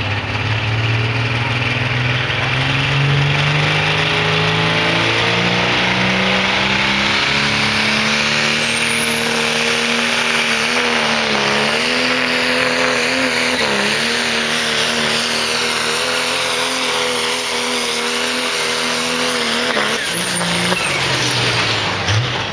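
Diesel truck engine at full throttle pulling a sled. The revs climb over the first several seconds, then hold high with a thin high whistle above them, dipping briefly twice, before the engine lets off near the end.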